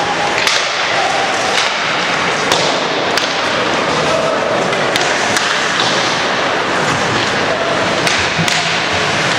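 Ice hockey play: sharp clacks and knocks of sticks, puck and boards, about eight over the span, over a steady noisy din in the rink.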